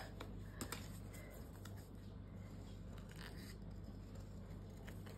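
Scissors cutting through a printed paper card: a few faint, scattered snips as a small picture is trimmed out.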